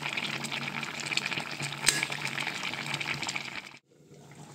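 A pot of fish, bottle gourd and potato curry boiling on the stove, a steady bubbling, with one sharp clink near the middle. The bubbling cuts off abruptly near the end, leaving only a faint background.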